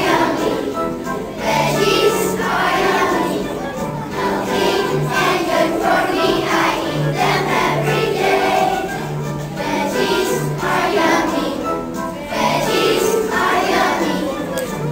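A group of young children singing a song together with instrumental accompaniment that has a steady bass line.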